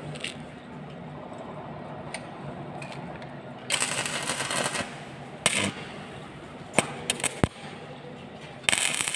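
Electric arc welding: the arc crackles and sputters in short bursts, about a second long near the middle and again near the end, with a few sharp clicks between, over a steady low hum.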